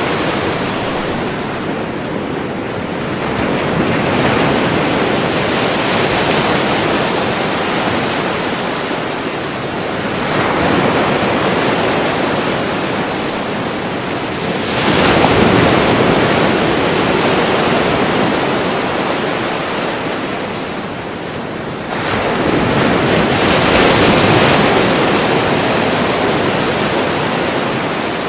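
Ocean waves breaking on the shore one after another: a continuous wash of surf that swells with each breaker and then eases off, with the loudest wave about halfway through.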